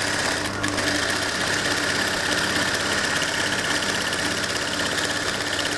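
Industrial lockstitch sewing machine running steadily at speed, its needle stitching rapidly with a steady motor hum, sewing a line of shirring with elastic thread on the bobbin.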